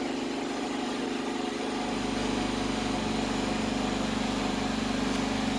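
A motor running steadily with an even hum; about two seconds in, a deeper low rumble joins it.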